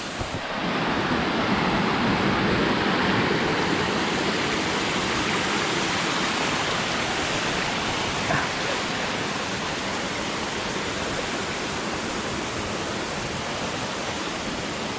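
Waterfall close by, water falling and splashing in a steady, dense rush that swells about half a second in and then holds level.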